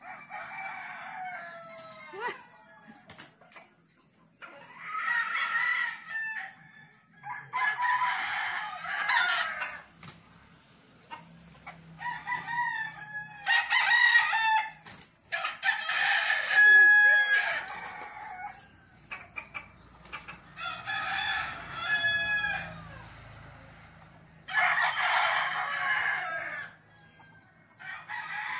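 Roosters crowing again and again, about eight crows in all, each lasting a second or two with a few seconds between them.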